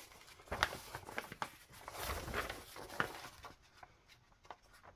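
Paper being handled: sheets and journal pages rustling, with a few light taps and knocks. The longest rustle comes about two seconds in, and the sound thins out near the end.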